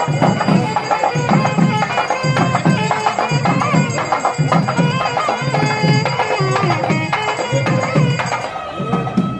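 Traditional-style music with a steady drum beat, about two beats a second, under a wavering melody line.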